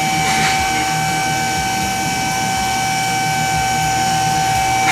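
Two-post vehicle lift's electric hydraulic pump motor running with a steady whine as it raises the pickup, cutting off right at the end.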